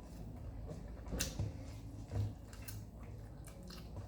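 Quiet eating sounds: a person chewing a mouthful, with a few short clicks and soft knocks spread through.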